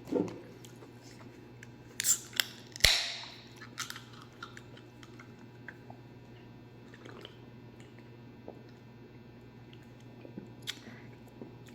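A person chewing a bite of ham and cheese sandwich. A few clicks come about two seconds in, then a sharp snap followed by a short hiss near three seconds.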